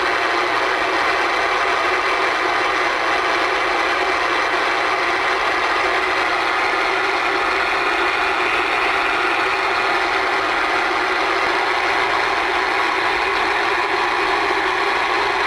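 Cherokee CM-1000 CB base station's receiver giving a steady hiss of static through its speaker, showing that it is receiving.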